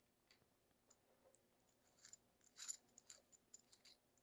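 Faint clicks and scrapes of flexible metal conduit and its fittings being handled, starting about two seconds in.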